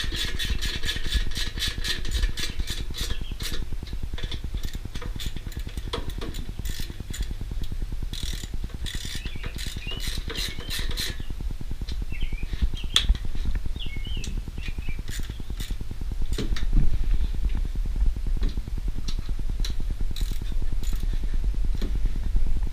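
Hand socket ratchet clicking quickly and evenly as bolts are run in, then stopping and starting in shorter bursts with light knocks of tool on metal, over a steady low hum.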